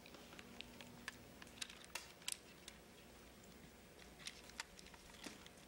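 Faint, scattered small clicks and ticks at irregular intervals over quiet room tone.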